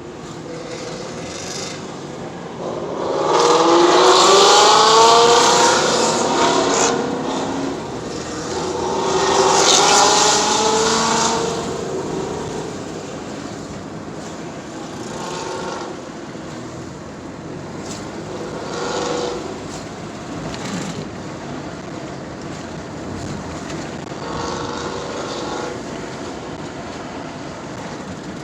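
GT cars passing by at speed, their engines rising in pitch as they accelerate. Two loud passes come close together in the first half, followed by several fainter cars going by.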